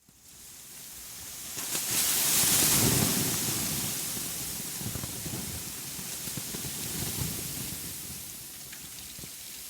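A rushing hiss with a low rumble beneath it, starting abruptly out of silence, swelling to its loudest two to three seconds in and then slowly dying down.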